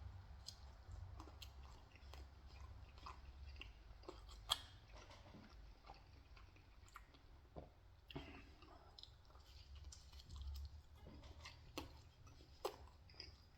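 Faint close-up chewing of pizza, with scattered wet mouth clicks and smacks; one sharper click about four and a half seconds in.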